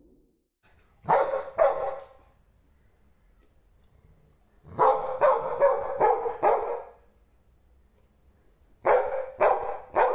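Golden retriever barking in three short bouts: two barks, then about five in quick succession, then three or four more, with quiet between the bouts.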